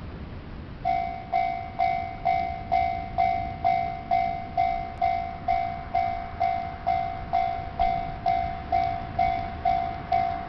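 Railway level-crossing warning bell starting about a second in and ringing steadily about twice a second, each ding a clear tone that fades before the next. This is the signal that a train is approaching the crossing.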